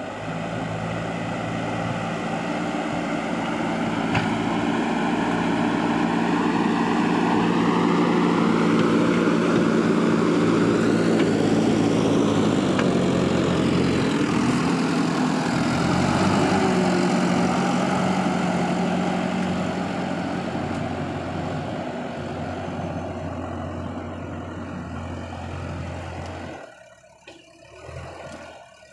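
JCB backhoe loader's diesel engine running as the machine works and drives close past, its pitch rising and falling with the revs. It grows louder, then fades as it moves away, and drops off sharply near the end.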